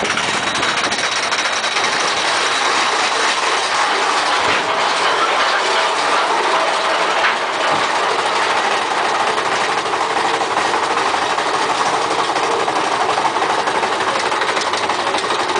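Big Thunder Mountain Railroad's mine-train roller coaster climbing a lift hill: a steady, dense clatter of the lift chain and the train's wheels on the track.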